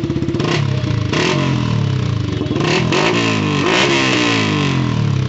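Yamaha R15 V3's 155 cc single-cylinder engine through an aftermarket slip-on exhaust, revved several times, its pitch rising and falling with each blip, then dropping back to an even idle near the end. This is a sound check of the newly fitted exhaust.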